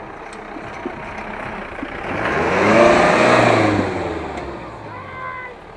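A white SUV's engine drives past close by on a dirt track, growing louder to a peak about three seconds in, then fading as its pitch drops away.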